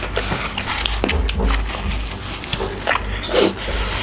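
Close-up eating sounds of people chewing pork curry and rice, with many short wet smacks and mouth clicks and a louder smack about three and a half seconds in.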